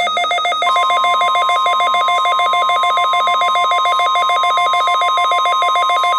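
NOAA Weather Radio 1050 Hz warning alarm tone, a steady high tone that starts under a second in. It plays over a fast electronic pulsing beep of several tones at once, which cuts off near the end.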